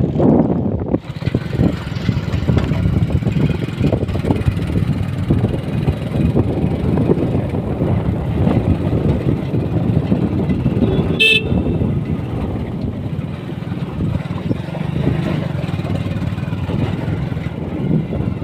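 Motorcycle riding along, its engine running under steady wind and road noise, with one short horn beep about eleven seconds in.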